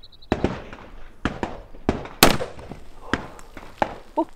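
Desert Eagle .50 AE pistol being fired: a series of sharp gunshot cracks, the loudest about two seconds in.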